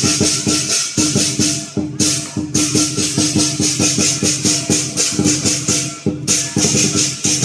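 Lion dance percussion: a drum beaten in a fast, steady rhythm with clashing cymbals. The cymbals break off briefly about two seconds in and again near six seconds, then come back in.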